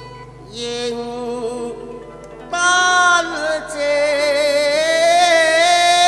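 Cantonese opera duet song accompanied by a traditional Chinese ensemble of bowed and plucked strings. A quieter instrumental phrase gives way about two and a half seconds in to a loud, sustained singing line with a wavering vibrato.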